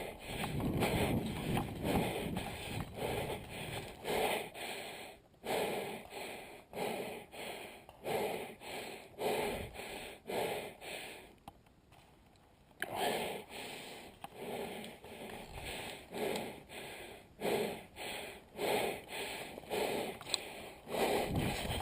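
A person breathing heavily and rhythmically close to the microphone, about three breaths every two seconds, pausing briefly twice.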